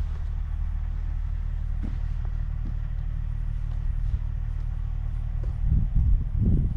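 Wind rumbling on the microphone as a low steady rumble, with stronger gusts buffeting it near the end.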